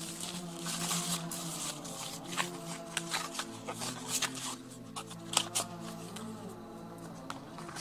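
Thin plastic wrapping sheet crinkling and rustling in sharp crackles as it is pulled off a laptop, over background music with sustained tones.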